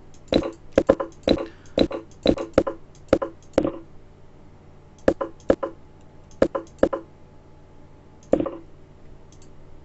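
A run of short, sharp computer clicks, several a second at first, then a sparser handful and a single click near the end, as chess moves are stepped through on screen.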